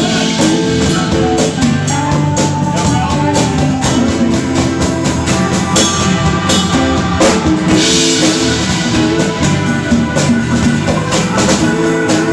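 Pop-rock song with drum kit, guitar and held instrumental notes over a steady beat.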